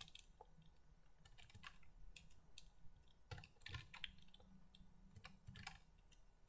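Faint typing on a computer keyboard: irregular clusters of soft keystrokes.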